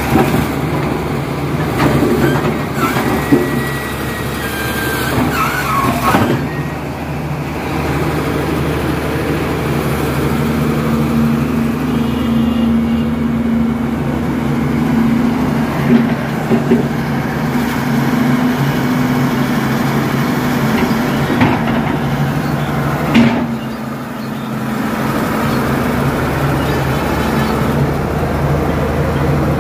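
Caterpillar excavator's diesel engine running steadily, its note strengthening in the middle stretch, with a few sharp knocks from the machine working.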